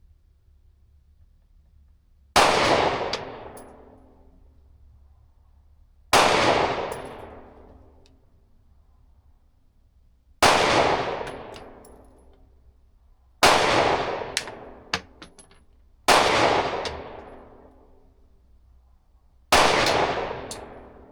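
Six single 9mm pistol shots from a Glock 43X, fired slowly about three to four seconds apart with a deliberate slow trigger pull, each followed by a long fading echo. A few light clicks follow the fourth shot.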